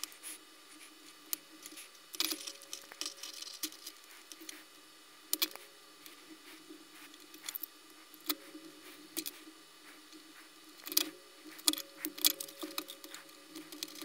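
Utility knife slitting and scraping the black rubber outer sheath of a power cable, with irregular small clicks, scrapes and handling noises as the sheath is peeled back from the inner wires.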